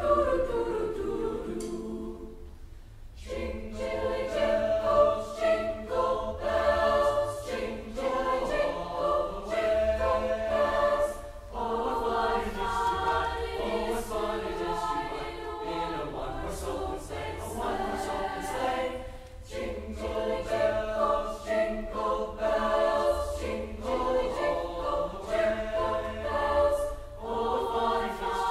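A large mixed choir of young voices singing, phrase by phrase, with short breaks between the phrases.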